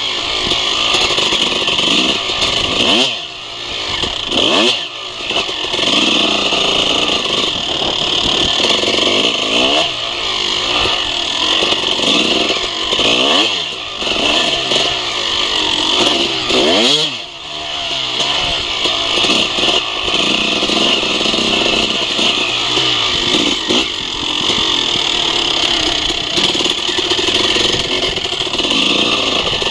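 Suzuki RM250 two-stroke dirt bike engine revving up and falling back again and again while riding a trail. The throttle is briefly shut off a few times, near 3, 5 and 17 seconds.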